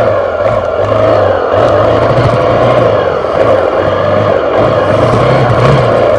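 Off-road trail motorcycle engine running under riding load, its note dropping and picking up again every second or so as the throttle is worked, with heavy noise over it.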